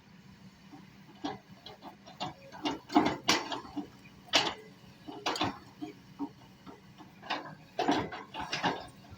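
Excavator at work: irregular knocks and clatters, loudest about three seconds in and again near the end, over a faint steady low hum.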